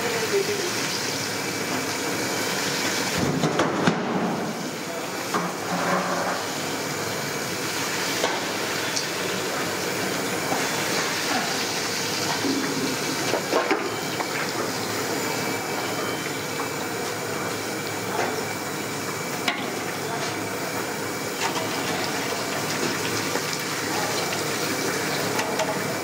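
Battered quail deep-frying in a large iron kadai of hot oil: a steady, even bubbling sizzle, with a few sharp clicks.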